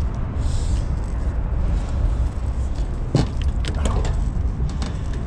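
A steady low rumble with scattered light clicks and taps from the middle on, as a flathead catfish is unhooked by hand on an aluminium boat deck.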